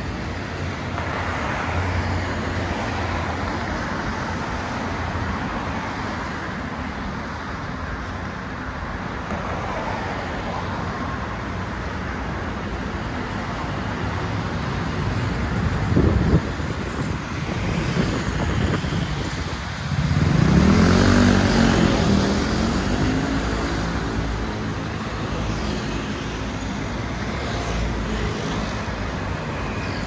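Busy city street traffic passing steadily. There is a short knock about halfway, and about two-thirds of the way in one vehicle passes close with its engine note rising and falling, the loudest sound here.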